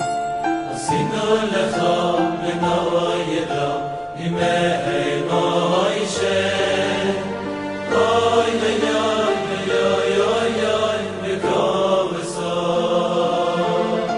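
Recorded music: chant-like singing over held, sustained notes, continuing a song whose sung lines just before include repeated "oy oy oy".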